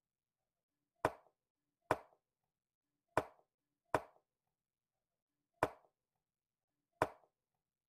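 Wooden chess pieces set down on the board and chess clock buttons pressed as two players move in quick turns: six sharp clacks over about seven seconds, at an uneven pace.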